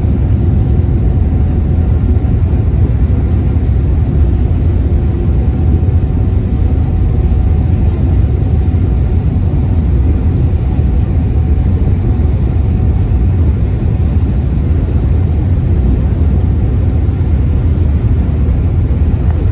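Passenger ferry underway, its engine running with a steady, constant low rumble.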